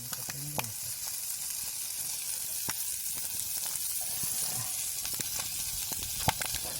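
Bird meat sizzling as it fries in a pan, a steady hiss with a few sharp clicks, the loudest about six seconds in.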